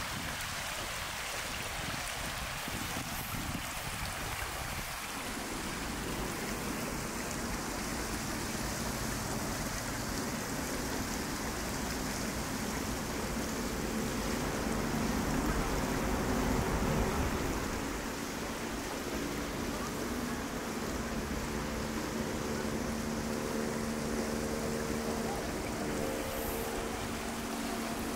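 Steady rush of water flowing in a shallow plaza pool. About halfway through, a faint hum of several low steady tones joins in.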